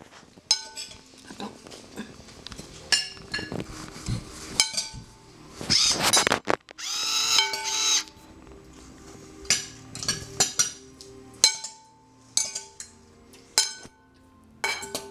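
Cutlery and dishes clinking at scattered moments. About six to eight seconds in comes a brief, louder high-pitched sound, and from then on faint steady tones sit underneath.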